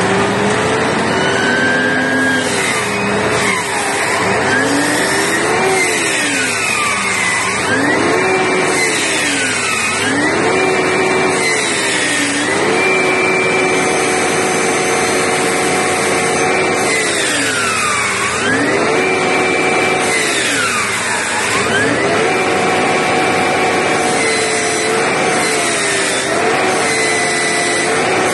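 Bus drivetrain with a Voith retarder running, a loud machine sound with a high whine over it. Its pitch drops and climbs back again and again every few seconds.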